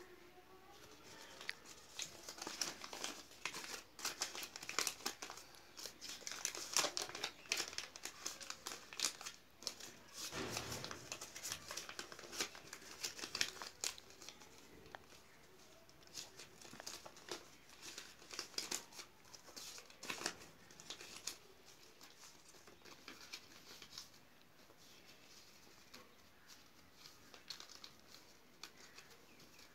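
Folded paper Pakistani rupee banknotes crinkling and rustling as they are unfolded, flattened and counted by hand. The crackles come in dense spells through the first half and grow sparser and quieter later.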